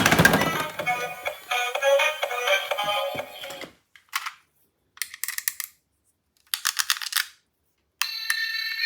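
Electronic tune from a toy's sound chip that stops after about three and a half seconds. Then come three short bursts of rapid clicking with silence between, and a steady electronic tone starts near the end.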